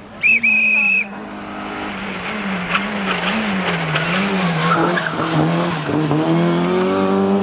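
Rally car engine approaching at speed, its revs rising and falling repeatedly as it brakes and turns, then climbing steadily near the end as it accelerates away. A short, loud, high-pitched tone sounds just before the engine comes in.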